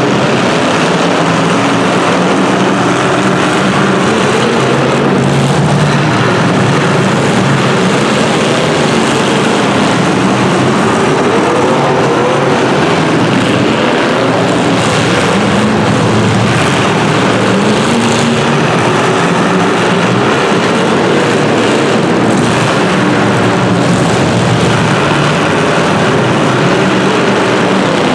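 Several racing engines running hard together and without a break, their pitch rising and falling as the drivers accelerate and lift.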